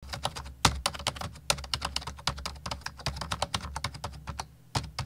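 Computer keyboard typing: a rapid, irregular run of key clicks, pausing briefly about four and a half seconds in.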